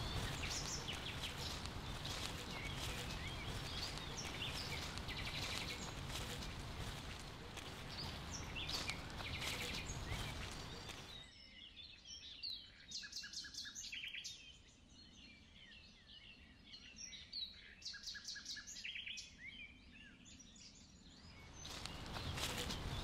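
Small birds chirping and calling over a steady outdoor rushing noise, with footsteps on a leaf-strewn path in the first half. About halfway through the background noise drops away suddenly, leaving the bird calls clear, and it comes back near the end.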